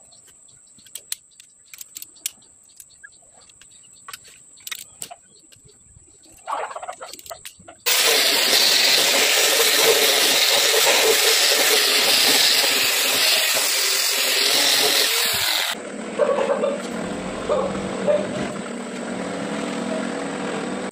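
Electric angle grinder with an abrasive disc polishing carbon off the deck of a cylinder block: a loud steady grind that starts abruptly about eight seconds in and stops near sixteen seconds. A quieter steady machine noise follows. Before the grinding, light metallic clicks of parts being handled.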